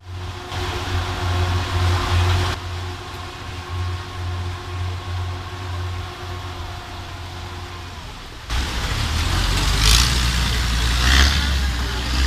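A motor engine running steadily with a low hum and a few steady tones above it. About eight seconds in, the sound cuts to a louder rushing noise with a couple of surges.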